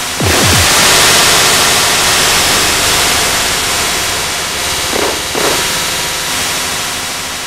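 Loud static-like hiss that surges up with a short low falling sweep just after the start, then slowly fades away.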